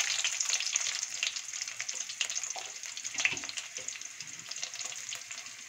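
Chopped shallots dropped into hot groundnut oil in a steel kadai where mustard seeds and urad dal have begun to splutter, for a tempering. The oil sizzles at once, full of fine crackles, and the sizzle slowly fades over the seconds.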